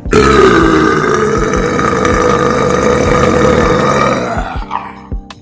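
A loud, rough belch-like growl played over a large DJ sound system. It starts abruptly and lasts about four and a half seconds before fading out.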